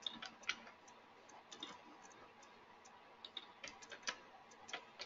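Faint, scattered clicks of a computer mouse and keyboard, a dozen or so single clicks spread unevenly, as text is selected, copied and pasted between programs.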